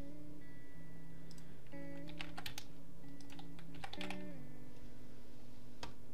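Computer keyboard keys clicking in a few short clusters: several quick clicks about two seconds in, a couple about four seconds in, and a single click near the end. Soft background guitar music plays underneath.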